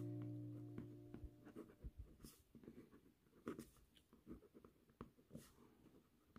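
Faint scratching of a pencil writing on a paper notepad, a string of short, irregular strokes. The last notes of a guitar fade out in the first second.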